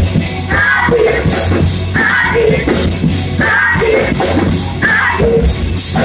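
Loud live gospel praise music filling a church, with singing and shouts over a phrase that repeats about every second and a half above a steady low bass note.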